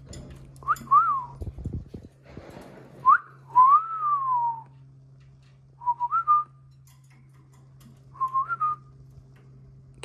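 Clear whistled notes in four short phrases, each a few rising and falling glides, with a longer falling note about three and a half seconds in.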